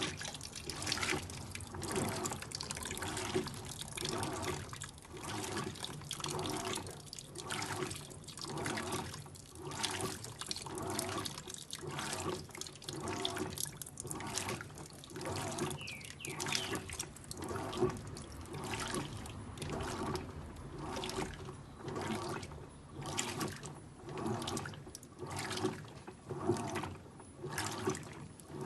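Electrolux Acquajet 15 kg washing machine in its wash cycle, water sloshing in the drum in a regular surge about once a second.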